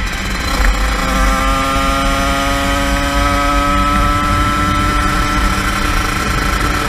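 A 50cc engine running at high revs, its pitch climbing slowly and steadily as it pulls, over a constant low rumble.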